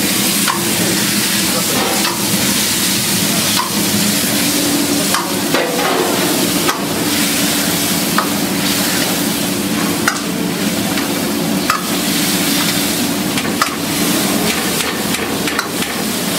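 Metal ladle stirring and scraping a thick masala gravy in a wok over a gas burner, with scattered clicks of the ladle against the pan over a steady sizzle. A steady low hum runs underneath.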